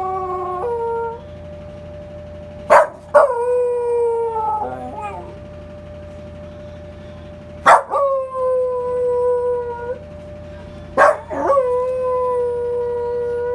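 Welsh corgi-type dog howling along with a siren: three long howls about four seconds apart, each opening with a short, sharp yelp, then sliding down in pitch and holding. The siren's steady tone runs faintly underneath.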